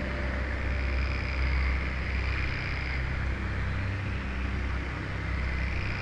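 Rainforest ambience: a steady hiss with a low wind rumble underneath, and a faint high insect trill that fades in about a second in and again near the end.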